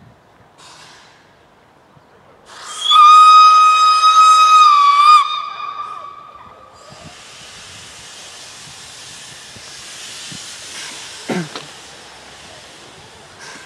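Steam locomotive whistle blowing one long, high, loud note for about two and a half seconds, a few seconds in. It is followed by a steady hiss of escaping steam, with a brief falling squeal near the end.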